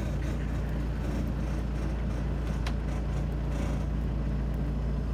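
Tour tram's engine running with a steady low hum, and a single brief click about two and a half seconds in.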